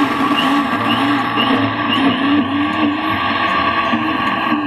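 Electric kitchen mixer motor running steadily through cake batter, its pitch wavering, with a faint ticking about twice a second.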